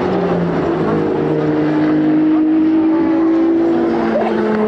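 Racing car engines running on a circuit, several engine notes held fairly steady at once, one sliding slowly down in pitch.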